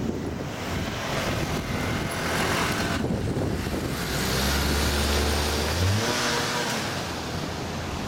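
Car driving on a city street: engine running with tyre and road noise, the engine hum growing strong for a couple of seconds about halfway through as it pulls away, then easing off.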